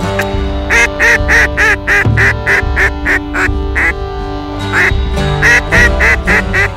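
Duck quacking in two quick runs of about four quacks a second, broken by a short pause in the middle, over steady background music.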